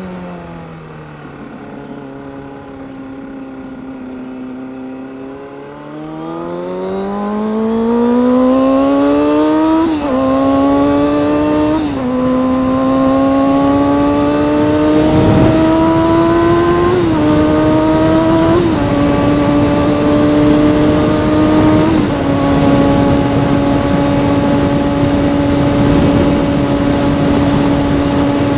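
Motorcycle engine idling low, then pulling away about six seconds in and accelerating through several upshifts, its pitch climbing and dipping at each shift. It then holds a steady cruise, with wind noise building.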